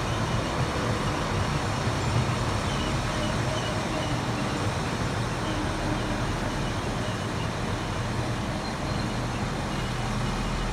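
A Siemens Desiro diesel multiple unit rolling out of a station: a steady rumble of its engine and wheels on the rails.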